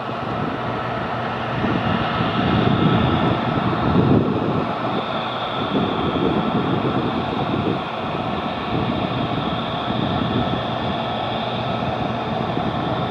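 Jet engines of an Airbus A319 (CFM56) on the landing rollout. A deep rush of engine noise swells about two seconds in, peaks around four seconds and eases near eight seconds. A steady high whine runs over it.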